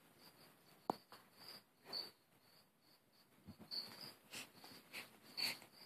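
Faint, repeated high chirping of a cricket, with soft rustles of fabric and a sharp tick about a second in.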